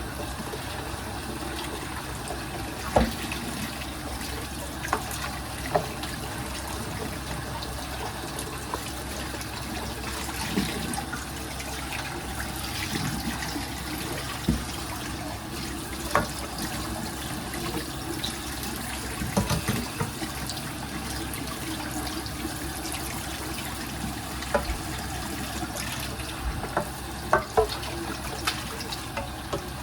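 Water running steadily from a sink tap, with scattered clinks and knocks of kitchenware handled in the sink.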